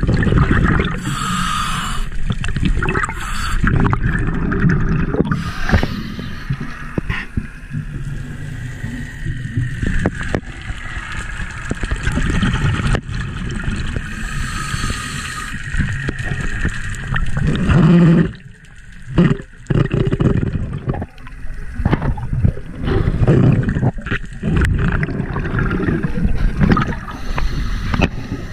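Bubbling, gurgling underwater rumble picked up by a diver's camera in its housing, most likely scuba regulator exhaust bubbles and water moving over the housing, with small crackles throughout. It dips briefly about two-thirds of the way through.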